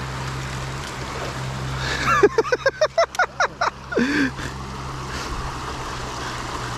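Creek water rushing steadily over a logjam. About two seconds in, a short burst of laughter: about ten quick pulses in a second and a half, then one longer note.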